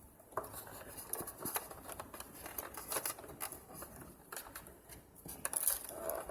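Irregular light clicks, taps and rustling of an HDMI cable being handled and fed through a treadmill's plastic console and frame.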